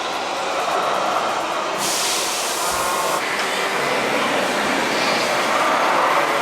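Radio-controlled model truck running with a steady mechanical drivetrain noise, with a burst of hiss lasting about a second and a half near the middle.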